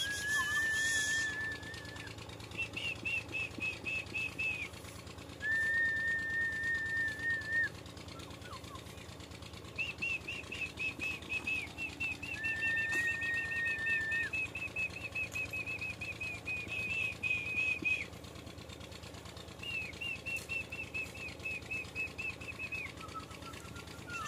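High-pitched whistling in phrases: long steady notes held for one to two seconds, alternating with fast runs of rapid chirping notes a little higher in pitch, with short pauses between phrases.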